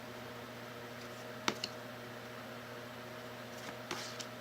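Board game cards and cardboard pieces being handled: a sharp click about one and a half seconds in and a few light clicks near the end, over a steady background hum.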